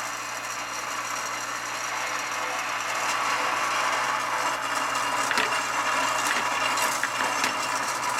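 Model-railroad operating barrel loader running: a steady electric hum and mechanical buzz as barrels travel up its conveyor, with a few sharp knocks as barrels drop into the gondola car.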